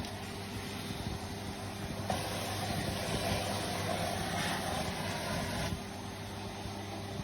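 Vacuum cleaner running with a steady motor hum and rushing air hiss. The hiss grows louder about two seconds in and drops back near the end.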